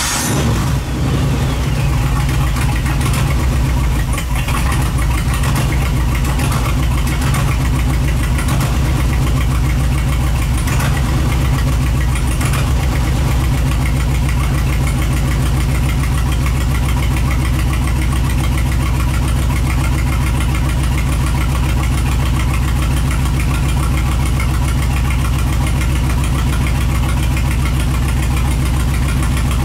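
5.7-litre Hemi V8 on an engine run stand, just started and running at a steady idle. It is pretty noisy, exhausting only through short pipes with catalytic converters.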